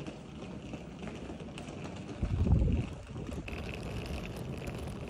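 Suitcase wheels rolling over pavement, a steady low rumble, with a louder burst of wind on the microphone a little over two seconds in.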